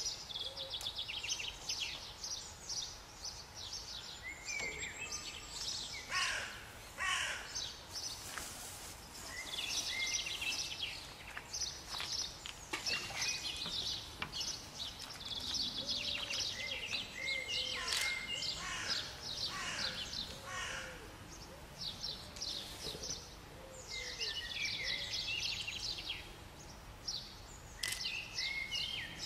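Several songbirds singing at once: a dense chorus of short, high chirps and trills.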